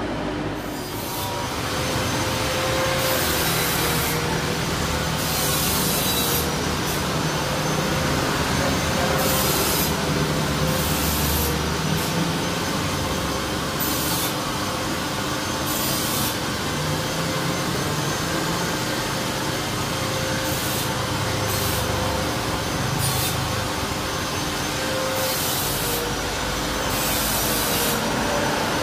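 Jet airliner engines running: a steady rushing roar with a faint wavering hum underneath, and short hissy surges that come and go every few seconds.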